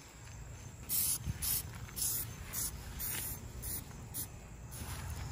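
Aerosol spray-paint can hissing in about seven short bursts over three seconds as paint is misted onto a wheel rim.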